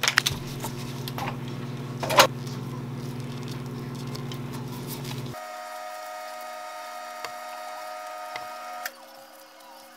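Plastic wrapping crinkling and crackling as imitation crab sticks are unwrapped, with one sharp crackle about two seconds in, over a steady machine hum. About halfway through, the hum gives way to a higher set of steady tones, which drop away near the end.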